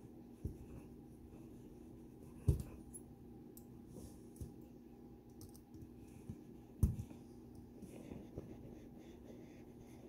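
A small metal tool scraping and prying at the retaining clip on the back of a Dom Sigma pin-tumbler lock cylinder: faint scratching and light metallic clicks, with two sharper clicks about two and a half and seven seconds in.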